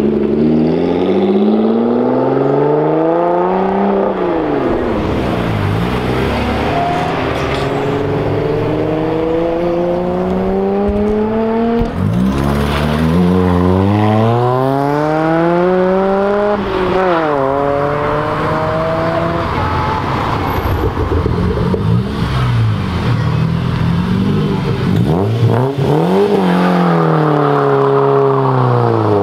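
One performance car after another accelerating hard away, first a Lotus Evora, then a Honda Civic hatchback, then a BMW 3 Series saloon. Each engine revs up in a rising sweep and drops sharply at the gear changes. The BMW spins its rear wheels as it pulls off.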